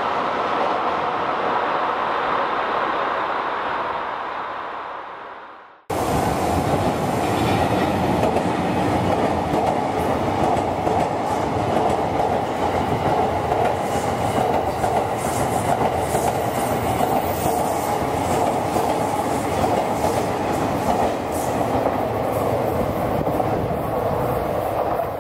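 Train Suite Shiki-shima (JR East E001 series) moving past on the track: a steady rumble of wheels on rail. The sound fades out about five seconds in, then cuts straight to another, louder pass of the train that runs on until near the end.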